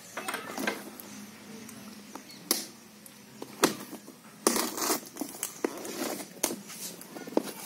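Clear plastic wrap around a parcel crinkling and crackling as a hand presses on it and turns it over: irregular rustles and sharp crackles, the loudest about three and a half seconds in and again around four and a half to five seconds in.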